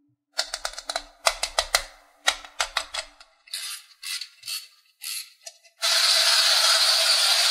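Rapid, irregular clicking, typical of a plastic wind-up toy's key being turned, then a few softer clicks. About six seconds in, a steady rattling hiss starts and keeps going.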